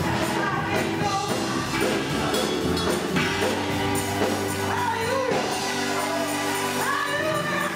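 Gospel choir singing with a band accompanying, the voices sliding between held notes over a steady instrumental backing.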